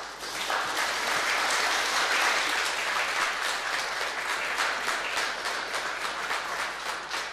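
Audience applauding. It builds over the first second, holds as dense clapping, then thins toward the end into more separate claps.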